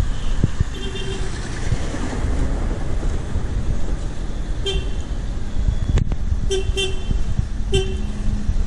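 Street traffic with vehicle horns giving about five short toots: one near the start, one midway, a quick double toot and a last one near the end, over a steady low traffic rumble.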